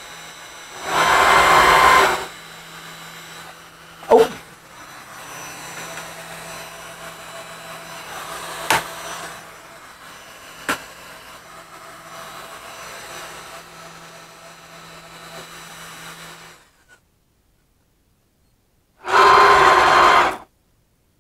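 Two short bursts of loud electric-motor noise, each about a second and a half long, one near the start and one near the end, over a steady low electrical hum with a few sharp clicks in between.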